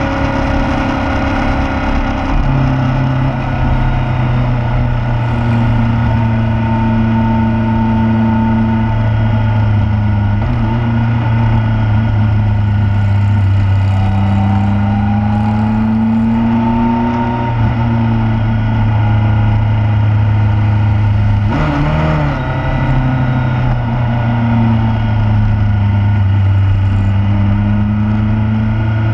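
Motorcycle engine running on the road, its pitch rising and falling gently with the throttle, under steady wind and road noise. There is a brief break in the sound about three-quarters of the way through.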